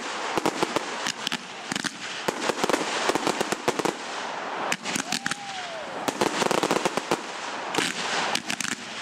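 Aerial fireworks going off: rapid sharp cracks and bangs, with bursts of dense crackling and a whistling shell that rises and falls about five seconds in.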